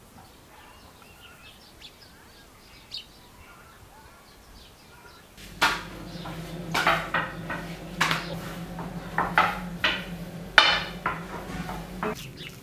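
Faint bird chirps, then from about halfway a low steady hum with a run of sharp, irregular knocks and clatter on a kitchen table.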